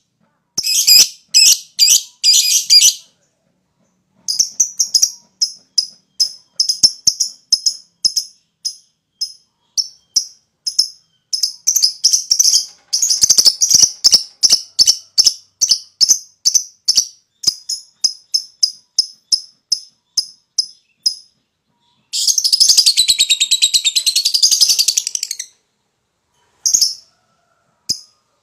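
Lovebird calling: strings of short, sharp, high chirps at about three or four a second, with a brief pause about three seconds in. About three quarters of the way through comes one dense unbroken chattering trill of about three seconds, the long 'ngekek' prized by lovebird keepers.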